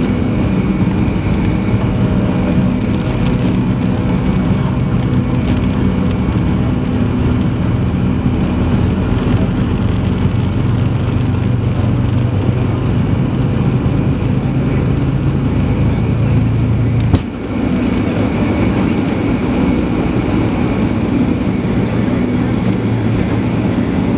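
Cabin noise of a Boeing 757 taxiing: a steady engine drone with a low hum and rumble, heard from inside the cabin. A short click comes about two-thirds of the way through.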